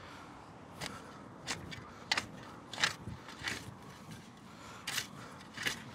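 A garden tool digging into topsoil: seven short scrapes, about one every two-thirds of a second, with a brief pause near the middle.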